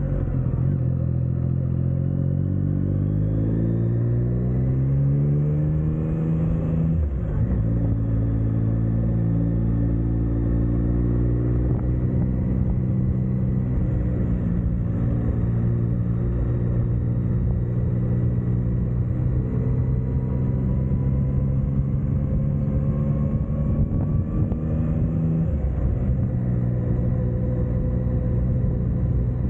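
Motorcycle engine accelerating, its note rising for about six seconds, with a gear change about seven seconds in. It then runs at a steady pace, and the note changes again about twenty-five seconds in.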